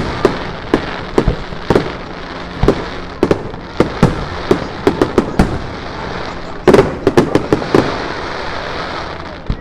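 Aerial fireworks display: a rapid series of sharp bangs from bursting shells over a steady background crackle, with a dense cluster of bangs about seven seconds in, thinning out near the end.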